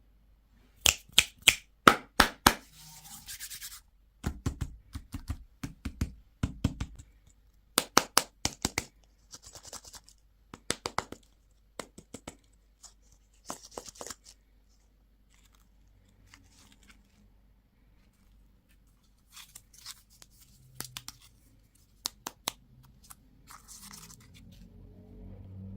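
Hands opening plastic candy packaging: quick runs of sharp plastic clicks and taps with short bursts of crinkling and rustling, then a quieter pause before more clicks near the end.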